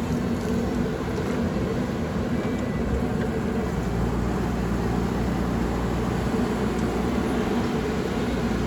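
JCB backhoe loader's diesel engine running steadily at a constant drone.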